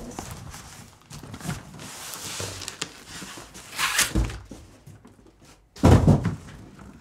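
Large cardboard box being handled and a folded portable solar panel in a black case slid out of it: cardboard scraping and rustling, a sharp scrape about four seconds in, and a heavy thump about six seconds in as the panel comes free.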